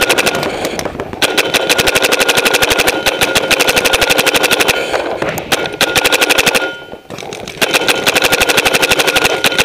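Paintball marker firing in long rapid strings of about a dozen shots a second, with short breaks between strings and a pause of about a second around seven seconds in.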